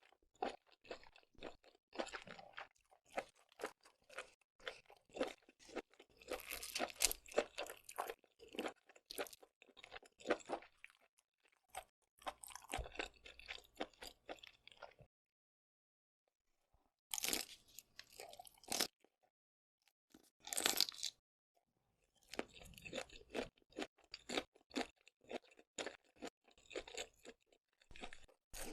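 Close-miked chewing of seafood: rapid wet crunches and mouth clicks, pausing briefly a few times about halfway through.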